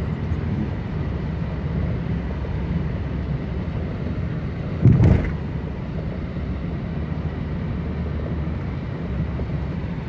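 Inside a car driving on a snow-covered street: a steady low rumble of the engine and tyres, with a single thump about halfway through.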